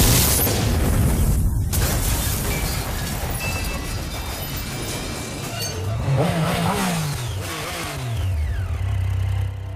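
Action sound effects: a sudden loud crash at the start, then the noise of a speeding vehicle, with a motorcycle engine revving up and back down about six to eight seconds in, over a low music drone.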